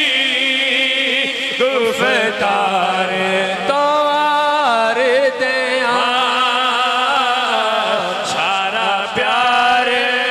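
A man singing a devotional Urdu naat into a microphone, drawing out long notes with a heavy wavering vibrato and sliding runs between phrases.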